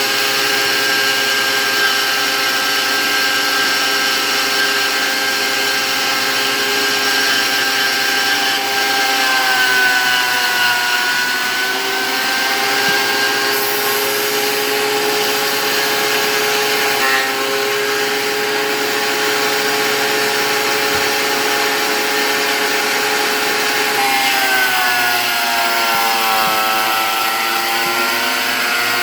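Thickness planer running with a loud, steady motor whine. Twice its pitch drops and then climbs back, as boards feed through and load the cutterhead.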